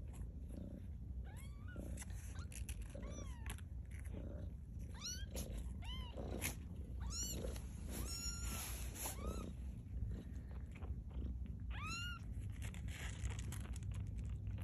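Two-week-old kittens mewing: many short, high, squeaky cries that rise and fall, coming thick through the first ten seconds and again about twelve seconds in, over a steady low purr.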